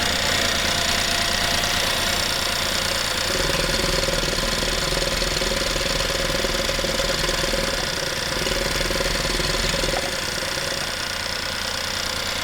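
A burnt BMW parts car's engine running steadily, its low rumble deepening about three seconds in and easing again near ten seconds. The owner says it is kind of misfiring, with something disconnected.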